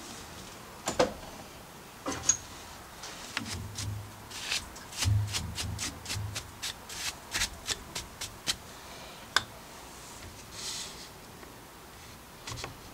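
Hands handling and fitting small metal parts on a lathe's cross slide: a run of sharp clicks and light knocks with a few dull thumps, then a brief rubbing hiss about eleven seconds in.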